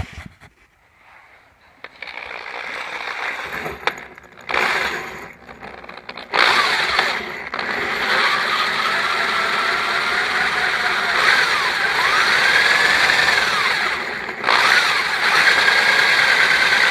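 A small electric power tool spinning a brush to scour rust out of a lawnmower carburetor. It whirs in stretches, loud from about six seconds in, with brief drop-outs, and its whine wanders up and down in pitch as the brush bites.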